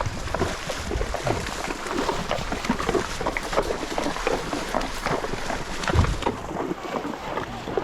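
Water splashing and sloshing in irregular strokes, as of wading across a shallow river, with wind rumbling on the microphone.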